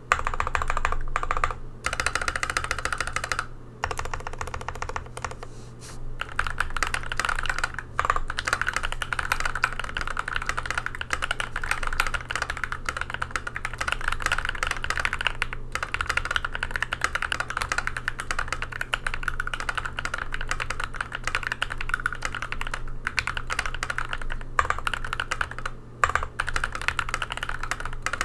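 Continuous fast typing on a GMMK Pro mechanical keyboard with an aluminium plate and lubed, filmed Epsilon switches: a dense stream of smooth, soft-bottoming keystrokes with an audible travel sound, broken by a few brief pauses.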